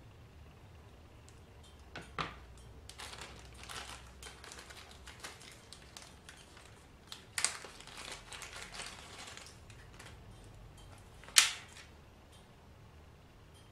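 Small sewing-machine motor parts being handled by hand: scattered clicks and rustling, with sharp knocks about two seconds in and about seven seconds in, and a louder knock near the end.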